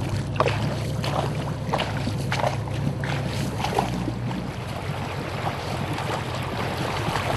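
A boat engine running steadily with a low hum, easing off about four and a half seconds in, with short sharp splashing and knocking sounds over it in the first half.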